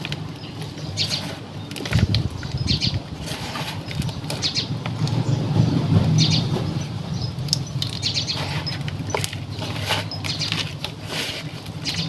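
Gloved hands working potting soil around an aloe in a plastic basin: irregular rustling, scratching and crackling of soil and leaves, over a steady low rumble.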